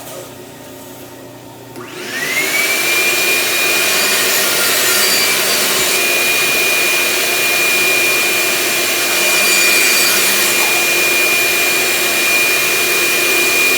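Craftsman shop vacuum starting up about two seconds in: its motor whine rises, then settles into a loud, steady rushing run with a high whine.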